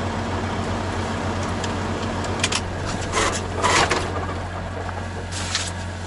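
Semi truck's diesel engine idling, a steady low hum heard inside the cab, with a few short hissing noises partway through.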